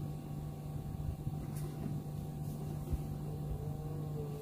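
Outdoor background during a pause in talk: a steady low hum with wind rumbling on the microphone.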